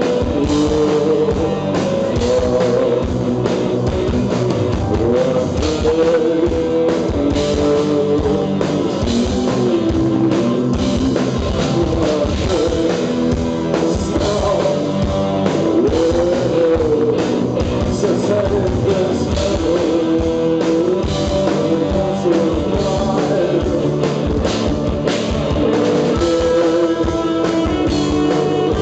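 Live gothic rock band playing loudly: a male singer's drawn-out, bending vocal line over guitar and a drum kit keeping a steady beat.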